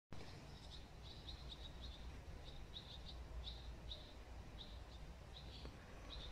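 A small bird chirping: short high chirps, some doubled, repeated irregularly about two or three times a second over a low steady rumble.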